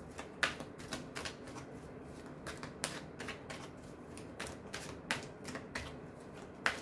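A tarot deck being shuffled by hand, the cards slapping and clicking against each other in quick, irregular taps.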